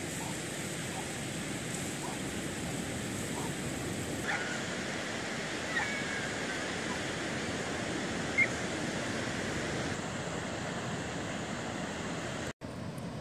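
Steady wash of sea surf breaking on a sandy beach, with a few brief faint higher sounds over it. The sound drops out for an instant near the end.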